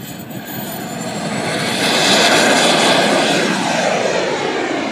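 Small gas turbine of a radio-controlled model jet taking off and climbing away: a thin high whine over a rushing jet noise. The noise swells to its loudest about two seconds in as the jet passes, then drops in pitch and eases off as it climbs.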